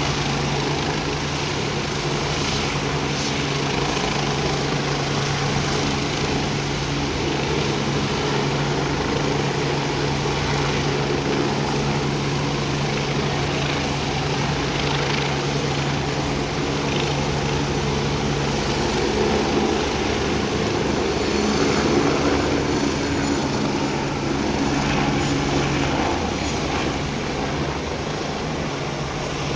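Agusta A109 twin-turbine helicopter running with rotor turning, then lifting off and climbing away: a steady turbine-and-rotor hum that swells about two-thirds of the way through as it takes off, its low hum dropping away near the end.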